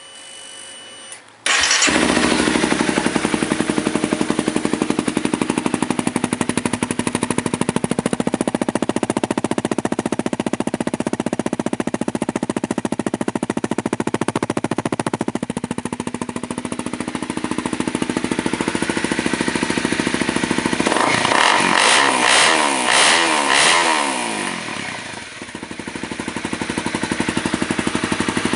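2011 Honda CBR250R's single-cylinder engine starting about a second and a half in, then idling steadily. Near the end it is blipped up and down a few times before settling back to idle.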